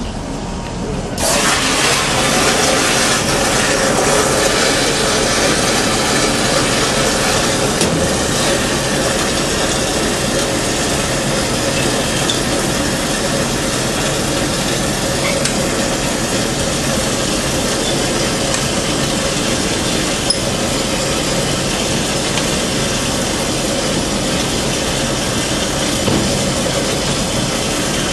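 Water mixed with floor stripper rushing from a wall-mounted chemical dispenser's hose into a plastic mop bucket: a loud, steady hiss of filling that switches on abruptly about a second in.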